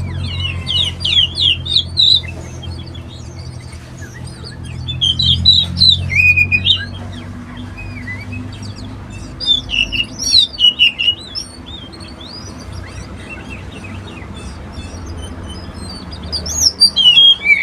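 Oriental magpie-robin (kacer) singing: four loud bursts of quick, varied, rising and falling whistled notes, separated by pauses of a few seconds, over a steady low hum.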